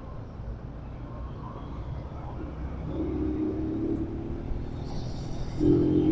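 Road traffic: a motor vehicle's engine hums as it approaches, growing louder near the end, over a steady low rumble.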